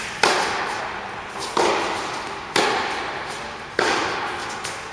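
Tennis rally: rackets striking the ball four times, roughly a second apart. Each sharp hit rings out and fades slowly in the reverberant indoor tennis hall.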